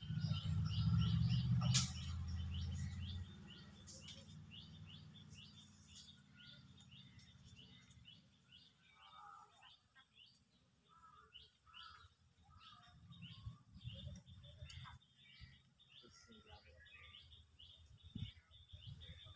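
Birds chirping in a rapid, continuous series of short high chirps. A low rumble sounds over the first few seconds, with a sharp click about two seconds in.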